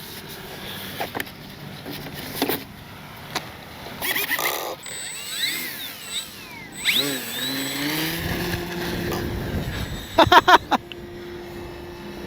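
Electric motor of an RC plane spooling up with a gliding whine about seven seconds in, then running at a steady pitch. Several sharp knocks, the loudest a quick cluster near the end, and wind noise on the microphone.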